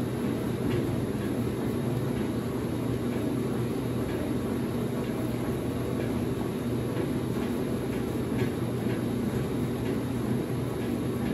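Late-1970s Maytag A806 top-load washing machine running with a large load of sheets, its motor humming steadily.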